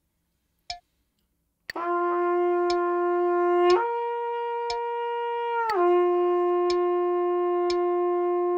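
Trumpet playing a slurred interval-study figure, the written G gliding smoothly up a fourth to C and back down to G with no break between notes, over a metronome clicking about once a second. The notes are held steady with no vibrato.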